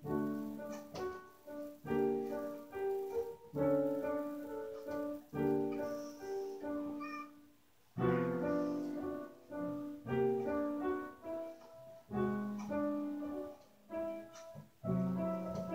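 Piano music: melody notes and chords struck and left to fade, with a brief pause about eight seconds in.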